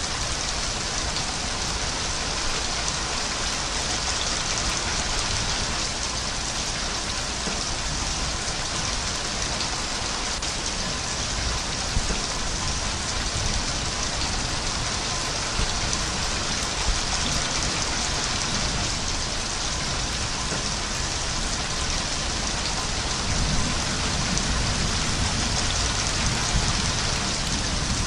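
Steady rain falling, a dense, even hiss with no let-up.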